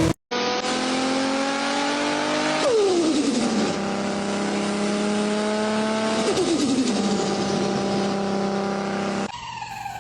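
Honda S2000's four-cylinder engine accelerating hard, its pitch climbing through the revs and dropping sharply at two upshifts, about three and six seconds in. Near the end the engine note falls away as the car comes off the throttle.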